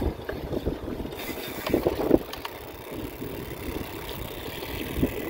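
Wind buffeting the microphone of a chest-mounted phone while a mountain bike rolls over a dirt street, with a steady rumble and a few knocks and rattles from the bike, the loudest about two seconds in.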